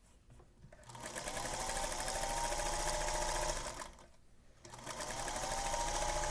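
Electric sewing machine stitching a seam in two runs. It starts about a second in with a rising whine as it gets up to speed, stops for under a second just past the middle, then starts again and keeps running.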